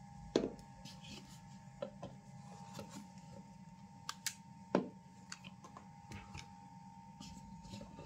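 Handling noise: scattered clicks and knocks as hands move a lavalier microphone, its cable and a small radio-cassette player, with two louder knocks, one about half a second in and one a little past the middle, over a steady electrical hum.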